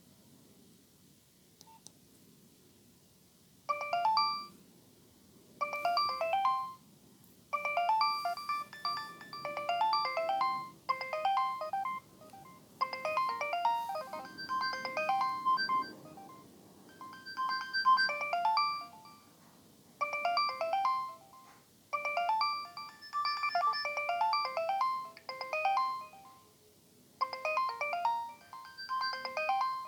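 Nokia 3120 mobile phone ringtone playing an electronic beeping melody in short phrases with brief pauses. It starts about four seconds in, after a near-silent gap.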